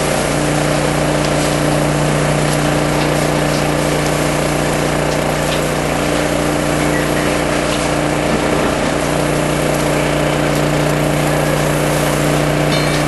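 An engine running steadily at a constant speed, giving a continuous drone, with a hiss from a fire hose stream over it.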